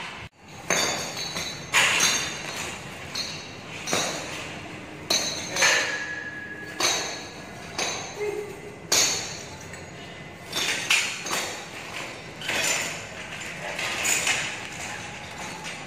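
Steel H-frame scaffold parts clanking together as the frames and cross braces are fitted: a series of sharp metallic knocks and clinks, each ringing briefly, every second or two.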